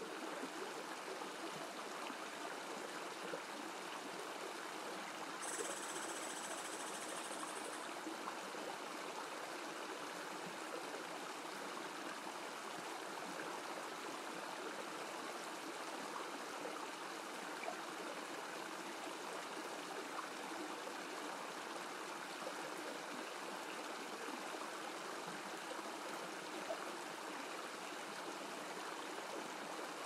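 Thin waterfall trickling and splashing down a rock face: a steady rush of falling water.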